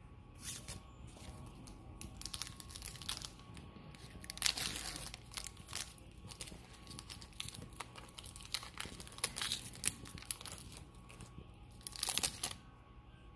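Foil wrapper of a Panini Prizm football card pack crinkling and tearing as it is opened, in irregular crackles, with longer, louder bursts about four and a half seconds in and near the end.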